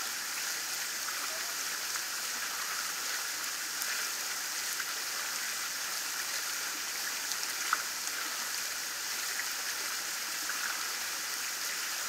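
Shallow water flowing and splashing down a concrete water feature, heard close to the surface as a steady, even rush. A single sharp tick cuts through it about eight seconds in.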